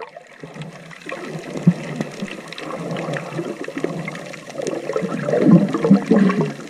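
Seawater sloshing and gurgling close to the microphone, growing louder over the last two seconds.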